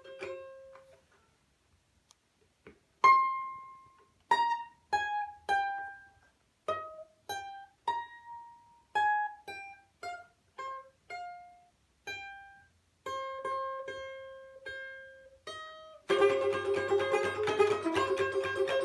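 Balalaika playing: a fast strummed passage dies away, and after a short pause single plucked notes sound one at a time, each ringing and fading, one held longer. About three-quarters of the way through, fast dense strumming starts again, louder.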